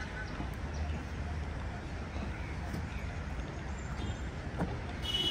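Outdoor city ambience: a steady low rumble of the city, with a few short high bird calls near the start and again near the end, and the walker's footsteps.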